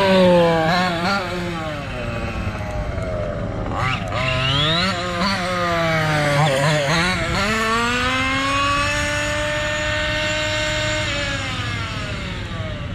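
MCD XR5 1/5-scale RC car's small two-stroke petrol engine running as the car is driven around, revving up and down with the throttle. Quick throttle blips come around the middle, then it climbs to a held high rev for a few seconds before dropping off near the end.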